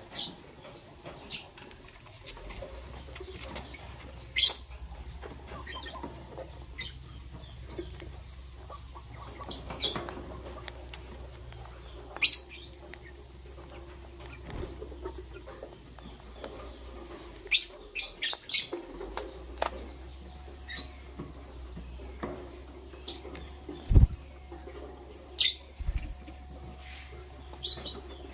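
Green and blue lovebirds giving short, sharp chirps every few seconds, with a quick run of several about two-thirds of the way in. Near the end come two dull thumps, all over a steady low hum.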